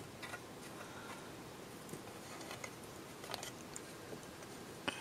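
Faint close handling of the black plastic housing of an electric spinning wheel, with fingers fitting small fabric strips into the flyer bearing channels. Several light clicks and taps are scattered through it, the sharpest a little past the middle.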